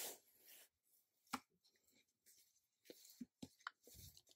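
Faint handling of a small metal pocket pipe wrench, the PipeVise Micro 5, as it is opened: one sharp click about a second in, then a few light ticks near the end, over near silence.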